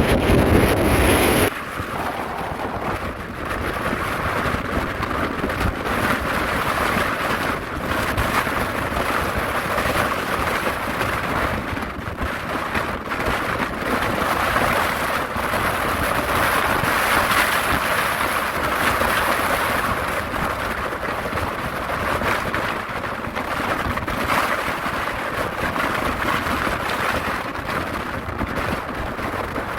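Storm surf and strong wind on a rocky shore: a steady roar of breaking waves swells and eases. For about the first second and a half, wind buffets the microphone with a heavy low rumble, which cuts off abruptly.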